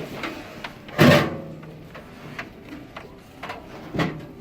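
Clunks and knocks from a countertop microwave being handled and set down: one loud clunk about a second in, then a few lighter knocks.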